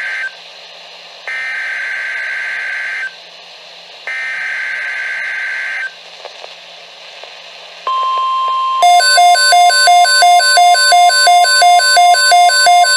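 NOAA Weather Radio Emergency Alert System signal: three buzzy bursts of the SAME digital header, each nearly two seconds long with short pauses of radio hiss between them. About eight seconds in, the steady 1050 Hz warning alert tone starts, and a second later a rapid pulsing beep alarm sounds over it, the loudest part.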